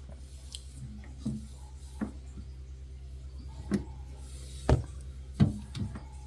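Refrigerator shelves being wiped with a damp towel: a handful of short light knocks and taps as hand and towel bump the shelves, over a steady low hum.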